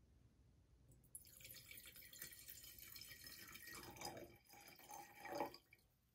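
Red wine poured from a bottle into a large bowl-shaped wine glass: a splashing stream that starts about a second in, with a few louder splashes near the end, then stops.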